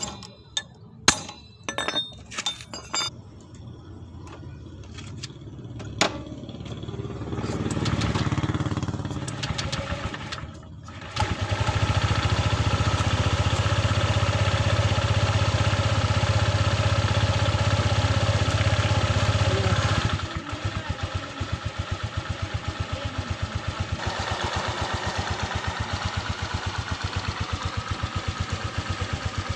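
A few sharp metallic clinks of a wrench on the clutch nut, then the Honda Vario 125 FI's single-cylinder fuel-injected engine running with the CVT cover off, its drive belt and pulleys exposed. From about eleven seconds in it runs steadily at a raised speed. At about twenty seconds it drops to an idle with a regular pulse.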